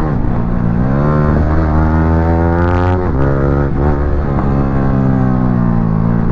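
Yamaha R15 V3's single-cylinder engine through a loud aftermarket exhaust, revving while riding. The pitch climbs, drops sharply about three seconds in, climbs again, then eases off near the end.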